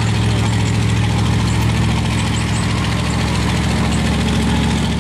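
Engine of a lifted, car-bodied mud truck on giant tyres running steadily at low revs as it crawls through the mud, holding an even pitch.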